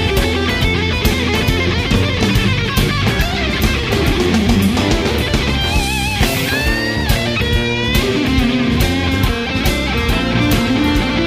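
Rock music with electric guitar and drums, with bending high guitar lines about halfway through.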